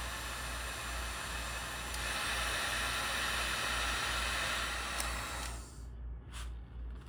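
Electric heat gun blowing a steady hiss while it heats the heat-shrink over a freshly crimped wire splice. It gets louder about two seconds in and cuts off about five and a half seconds in.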